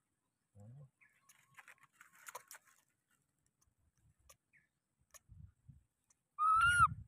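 Newborn macaque giving one high-pitched coo call near the end, rising slightly and then dropping away. A few faint rustles come earlier.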